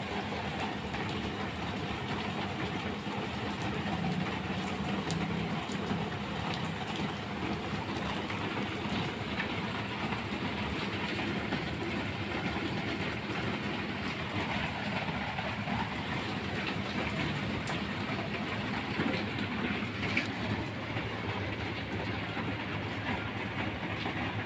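Steady rain, an even hiss with faint scattered ticks.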